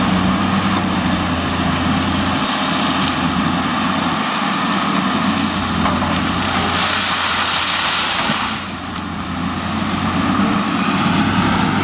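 CAT 330C excavator's diesel engine running steadily under hydraulic load as the boom and bucket swing. About two-thirds of the way through, there is a loud rush of gravel pouring out of the raised bucket onto the pile, lasting a couple of seconds.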